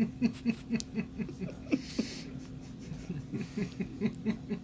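Soft laughter from people in the room: short, low chuckles repeating about four to five times a second.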